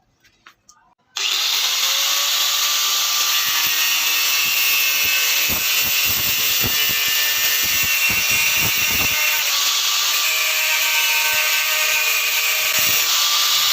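An electric power tool switches on about a second in and runs steadily, a hum with a strong high hiss, with a series of uneven low knocks in the middle.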